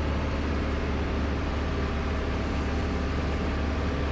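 Piper J-3 Cub's engine and propeller running steadily under power, with air rushing past, heard inside the cockpit.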